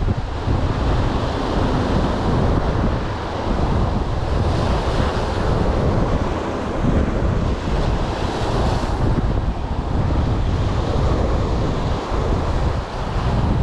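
Sea waves washing on the shore with strong wind buffeting the microphone: a loud, steady rushing noise that swells for a few seconds in the middle.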